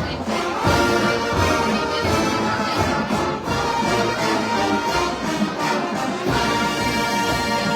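Marching band playing: brass carrying the tune over a steady drum beat.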